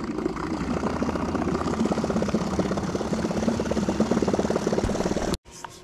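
Bow-mounted electric trolling motor running steadily, a motor hum with a fast, even pulse. It cuts off abruptly near the end.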